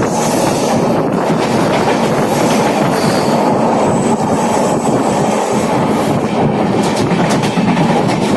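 Punjab Mail passenger train running along the track, heard from on board: a steady, loud rumble of the wheels on the rails with a clickety-clack of rail joints.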